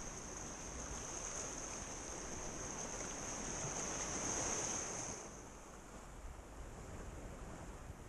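Sea surf washing against shoreline rocks: a steady rushing noise that swells about four seconds in and eases a second later, with a steady high-pitched buzz above it that fades at the same moment.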